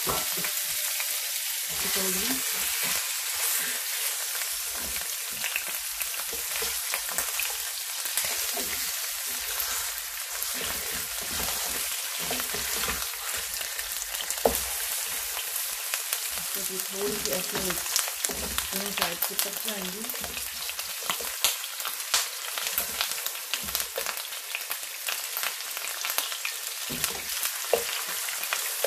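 Lamb legs sizzling as they sear in hot oil in a nonstick frying pan, a steady crackling hiss broken by frequent small clicks and scrapes of a spatula turning the meat.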